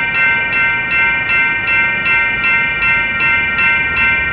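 Railroad grade-crossing bell ringing steadily at about two and a half strikes a second while the crossing gates come down: the crossing warning for an approaching train.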